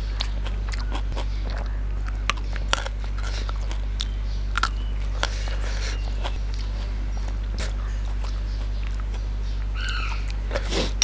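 Eating sounds: scattered small clicks and crunches of chewing raw vegetables and fingers mixing rice in a bowl, over a steady low hum.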